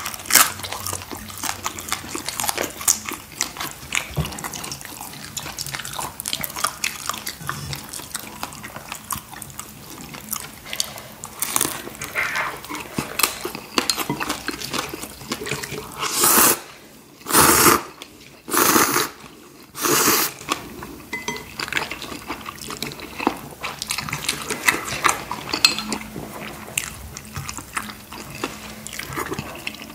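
Close-miked eating of instant ramen noodles with chopsticks: chewing and small clicks throughout. About halfway through come four loud slurps in quick succession.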